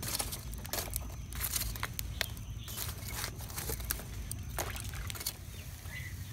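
Glowing charcoal crackling in a clay bucket stove: irregular sharp clicks and pops, over a low steady rumble. The clicks thin out near the end.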